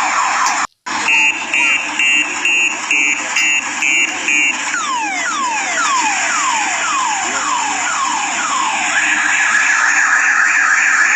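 Electronic multi-tone siren of an odong-odong tourist road train cycling through its sounds. After a brief break about a second in, it gives rapid beeps about twice a second, then a run of falling whoops about two a second, then a fast steady warble.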